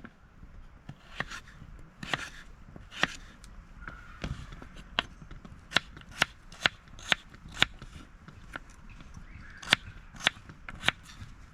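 A series of sharp knocks of hard objects, irregularly spaced, with a run of about two a second in the middle.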